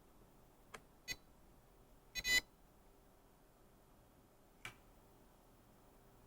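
Near quiet broken by a few faint, short clicks. The loudest is a quick double click with a brief beep-like ring about two seconds in, and a last click comes near the end.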